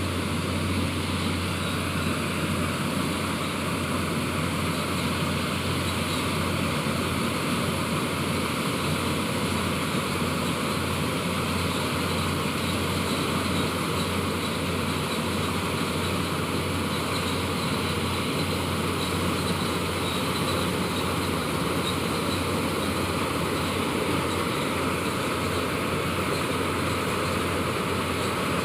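Combine harvester engine and machinery running steadily, a constant low hum under a broad mechanical noise.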